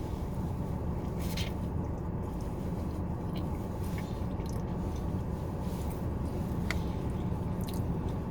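A person chewing food, with a few sharp mouth clicks, over a steady low rumble.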